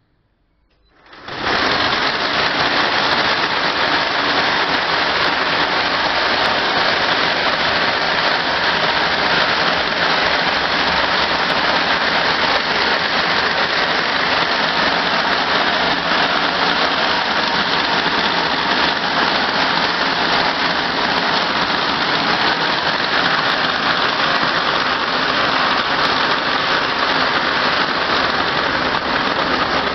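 A 32-carrier, two-head tres braiding machine starts up suddenly about a second in and then runs at a steady speed, its bobbin carriers travelling around the track with a loud, dense, even clatter.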